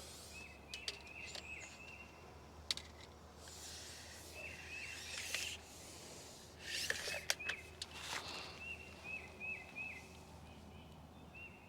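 A songbird singing runs of short, quick, hooked notes, several to a run, repeated throughout. Scattered clicks and rustling of handling come in between, the loudest a little after the middle.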